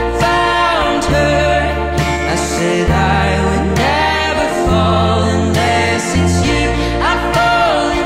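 Background music: a slow love song with a gliding sung melody over long held bass notes that change about once a second.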